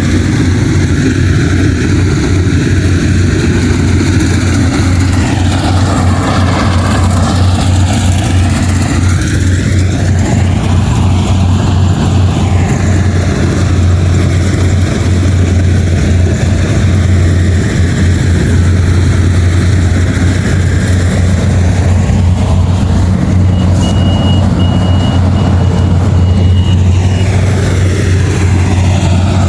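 Combine harvester engine running steadily with a deep, loud drone. A short high beeping tone sounds about three-quarters of the way through.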